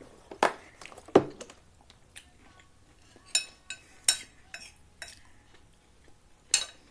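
A metal fork clinking against a plate while eating, with three sharp ringing clinks in the second half. A couple of knocks come about half a second and a second in, the second one louder.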